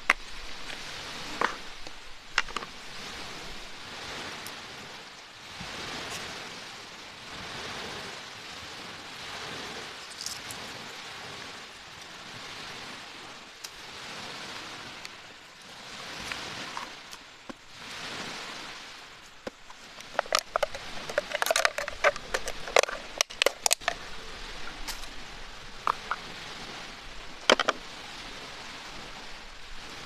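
Waves washing on a beach, the hiss swelling and fading every few seconds. About two-thirds of the way through, a quick flurry of clicks and taps from plastic containers and utensils being handled, with a few single knocks elsewhere.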